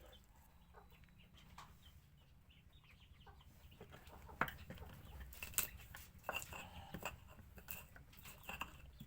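Chickens clucking faintly, the short calls coming more often from about four seconds in.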